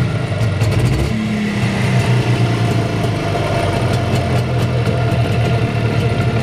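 Jawa 640's air-cooled two-stroke twin engine idling steadily, freshly rebuilt with honed used cylinders and being run in. It sounds normal, with nothing rattling and no extraneous noises.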